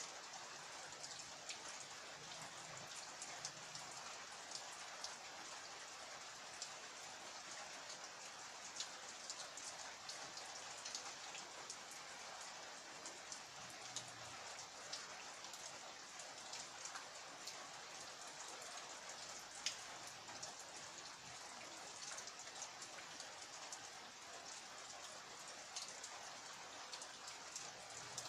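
Steady rain falling: an even hiss of rain with many separate drops ticking sharply through it.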